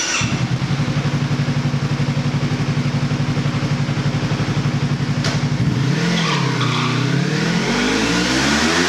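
Motorcycle engine breathing through a PRUNUS aftermarket muffler, idling steadily for about five seconds. There is a short click, then the engine pulls away under hard acceleration for a 0–400 m run on a chassis dynamometer, its pitch dipping briefly and then rising steadily.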